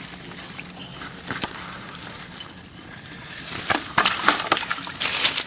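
Splashing and squelching in the muddy water of a harvested rice field while crabs are dug out by hand, in irregular bursts that are loudest near the end.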